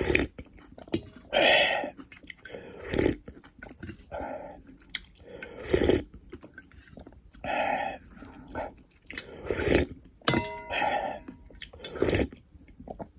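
Close-miked eating sounds: chewing and biting of beef and sausage stew, in separate bursts every second or two.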